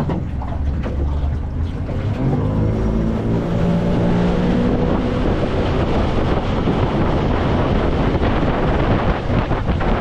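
Tow boat's outboard motor running as the boat gets under way. Its engine note stands out for a few seconds early on, then is buried under steady wind noise on the microphone and water rushing along the aluminum hull.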